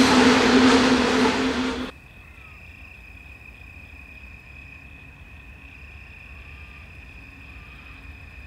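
Loaded coal hopper wagons of a freight train rolling past, a loud rumble with a steady hum, cutting off abruptly about two seconds in. After that, only a faint, steady, high-pitched drone remains.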